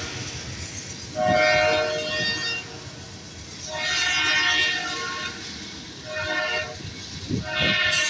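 CPKC freight locomotive's air horn sounding four blasts, long, long, short, long, the standard grade-crossing warning, over the rumble of loaded tank cars rolling past on the rails.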